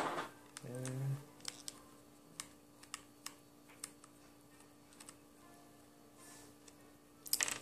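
Small screwdriver working the screws in an Anki Cozmo robot's plastic body: scattered light clicks and ticks of metal on screw and plastic, with a denser, louder clatter near the end.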